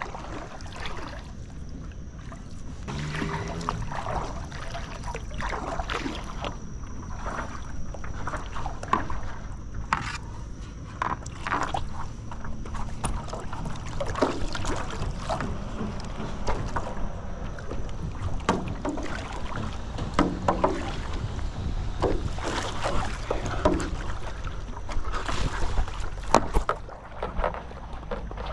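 Paddling a Naish paddleboard with a single-blade paddle: irregular splashes and drips as the blade dips and pulls through the river water, with water running along the board. Low wind rumble on the microphone underneath.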